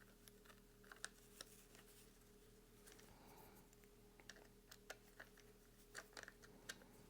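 Faint, irregular small clicks and taps of bolt, nut and hex key being handled while a QLS fork is bolted to a holster, over a low steady hum.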